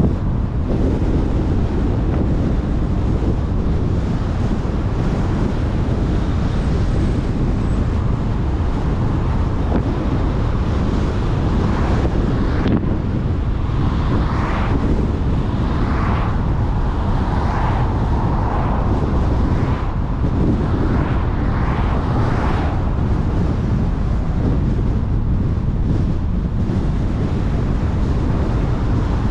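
Road noise from a car driving: a steady low rumble of tyres and engine with wind noise on the microphone, and a few brief swells in the middle.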